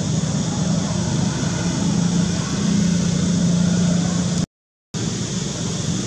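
Steady engine-like drone with a low hum, like a motor running nearby. It cuts out completely for about half a second some four and a half seconds in, then resumes.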